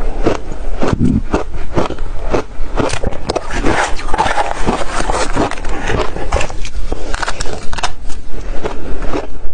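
Ice being bitten and chewed close to the microphone: a loud, dense run of sharp crunches and cracks, several a second.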